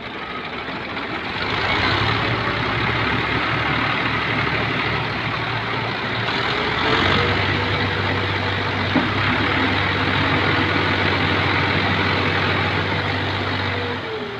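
Fiat 480 tractor's diesel engine running hard under load as the tractor, sunk in deep mud, strains to drive out. The engine grows louder about a second and a half in and holds steady, with a steady whine joining around the middle and fading near the end.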